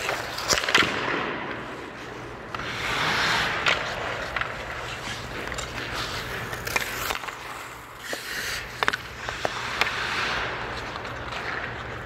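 Hockey skate blades scraping and hissing across the ice, with sharp clicks and knocks of stick and puck as a shot is taken about half a second in. Further long skate scrapes come around three seconds in and near the end, over a low steady hum.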